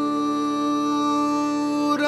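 Background music: a steady held instrumental chord, with one note wavering slightly.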